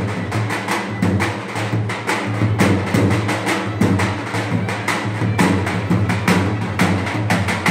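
Live dance music: a tupan, the large double-headed folk drum, beaten hard in a fast, driving rhythm, with a sustained melody instrument playing over it.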